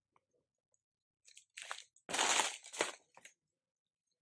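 Banana leaves being cut from the plant with a knife: a few short, crisp crunching and tearing sounds about a second and a half in, the loudest about two seconds in.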